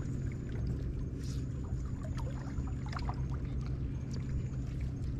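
Water lapping and gurgling against a boat's hull over a steady low rumble, with scattered faint ticks and small splashes.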